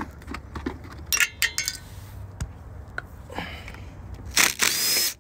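Small metal clinks and scrapes of hub cap bolts and a socket. Near the end comes a short burst from a Milwaukee M18 cordless impact driver spinning out a hub cap bolt.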